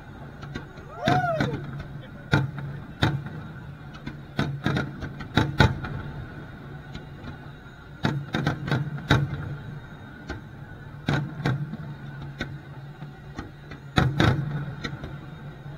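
Aerial fireworks shells bursting: a quick, irregular string of sharp bangs, loudest in a cluster near the end, over a steady low hum.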